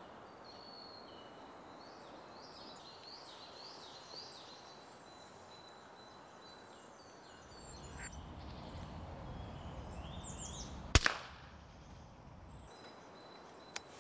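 Small birds chirping, then one sharp crack about eleven seconds in: a Daystate pre-charged pneumatic air rifle firing a shot at a squirrel on a feeder. A faint click follows near the end.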